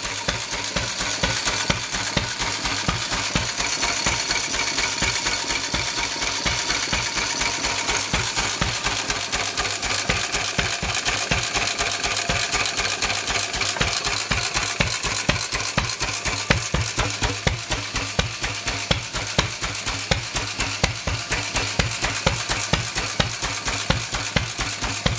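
Sundial 4 hp stationary engine running steadily, its strokes making a fast, even run of sharp knocks, several a second, with its heavy flywheels turning.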